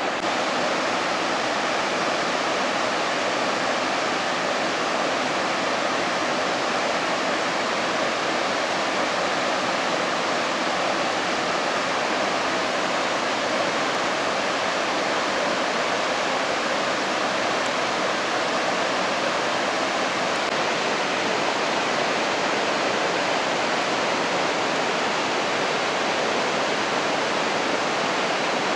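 The Rhine Falls, a large waterfall: a steady, unbroken rush of falling water.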